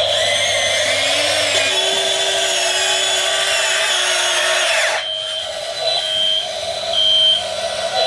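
Small electric motors and gearing of a 1/16-scale RC excavator whirring, the pitch sliding up and down as it works, until it cuts off suddenly about five seconds in. Then a few short high beeps, about one a second.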